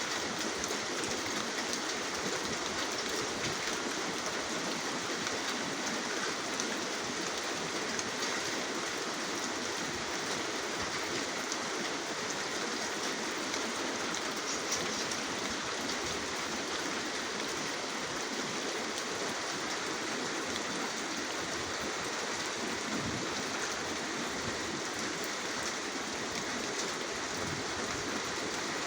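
Steady rainfall, a dense even hiss with many small drop patters, with no change throughout.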